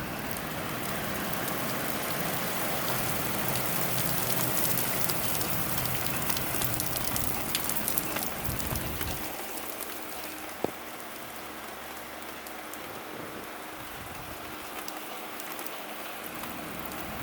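Heavy rain pouring down, a dense hiss full of fine drop impacts. About nine seconds in the low rumble drops away and the downpour goes quieter, with a single sharp tick shortly after.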